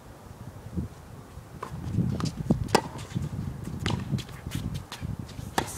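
Tennis play on a hard court: irregular sharp clicks and knocks of shoes and ball on the court surface, with low thuds of footsteps close by. The sounds start after about a second and a half and get louder.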